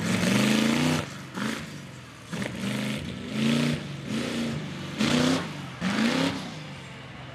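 Half-scale monster truck's engine revving in short throttle blips, about seven in a row, each rising quickly in pitch and dropping back between them.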